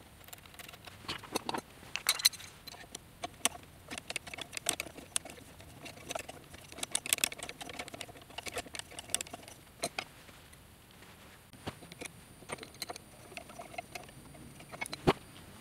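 Screws and nuts on a metal mounting bracket being tightened down with a hand tool: a string of irregular light metallic clicks and taps.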